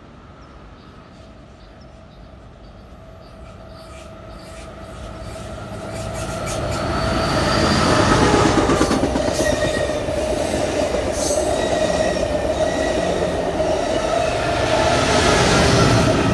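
Amtrak Pacific Surfliner passenger train approaching and passing close by, growing louder over the first half. Wheels run on the rails with a steady high tone and clicks over rail joints. The sound is loudest about halfway through and again near the end, as the locomotive at the rear goes by.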